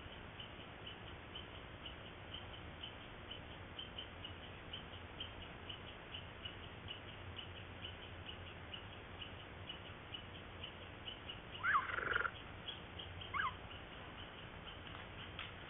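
Mountain lion giving two high chirping calls, a longer one of quick rising sweeps about twelve seconds in and a short one a second and a half later, over a faint steady hiss with light regular ticking.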